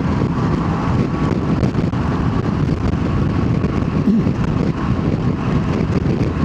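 Steady wind rush on a helmet-mounted camera over a motorcycle's running engine while riding.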